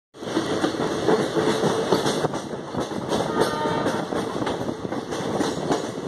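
Passenger train coach running along the track, heard from its open doorway: a steady rattling clatter of wheels and carriage.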